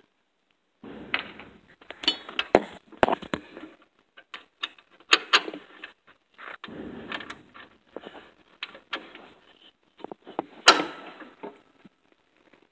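Metal deck hardware under a riding mower being handled: an irregular run of clicks, clinks and knocks with rustling in between, and one sharp knock, the loudest, near the end.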